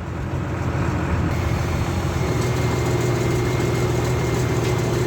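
A crane's engine running steadily at a constant speed. A faint high whine joins about two seconds in.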